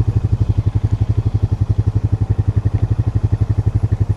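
Four-wheeler (ATV) engine running steadily, with an even, rapid pulse from its exhaust.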